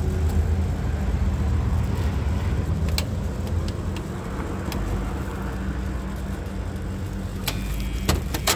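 Steady low motor hum, with a few sharp clicks and a quick cluster of clicks and knocks near the end.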